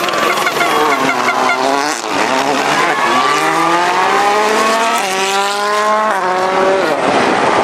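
Volkswagen Polo R WRC rally car's turbocharged 1.6-litre four-cylinder engine accelerating hard past. The note climbs through the gears with shifts about two and five seconds in, then falls as the car slows, with tyre noise near the end.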